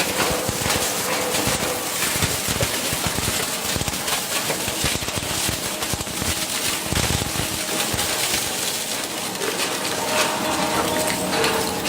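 Industrial shredder crunching and breaking material: a dense, continuous crackle of irregular snaps and cracks, with a faint steady machine tone joining near the end.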